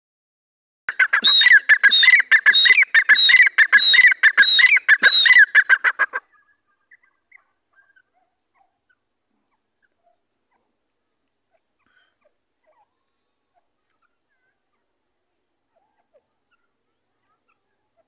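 Grey francolin calling: a loud, rapid run of repeated shrill notes lasting about five seconds, which breaks off abruptly about six seconds in.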